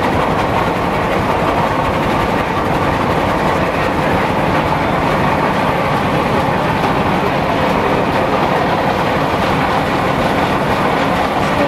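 Steam-powered mill machinery running: a loud, steady rumble and clatter with steam hissing.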